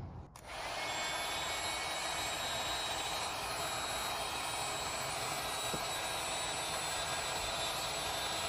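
An 1800 W electric heat gun switching on about half a second in, then running steadily, blowing hot air onto heat-shrink tubing over a crimped cable terminal.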